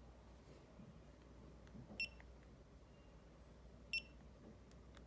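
Two short, high-pitched electronic beeps about two seconds apart from a Retekess wireless restaurant pager device, the kind of key-press or confirmation beep it gives while being operated, with faint clicks between them.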